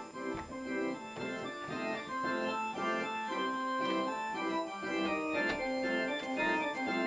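An organ playing a simple melody of short, evenly paced notes and chords, about two a second. It is a tune that a listener calls both cruel and innocent.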